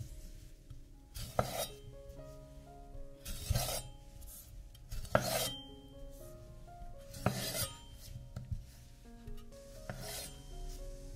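Five short rasping scrapes of a kitchen utensil, about two seconds apart, over soft background music.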